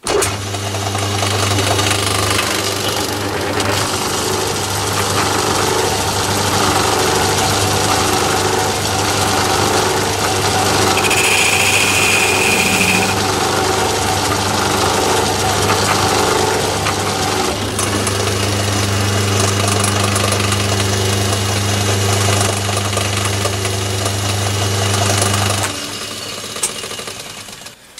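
Metal lathe running with a steady motor and gear hum while a pointed HSS tool cuts a fine marking line into a spinning aluminium blank. There is a brief high-pitched squeal about halfway through, and the lathe is switched off and runs down near the end.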